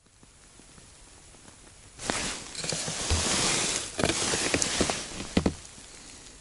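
Boots crunching and shifting on packed snow, with rustling of clothing, starting about two seconds in and lasting three to four seconds, with a few sharper knocks near the end.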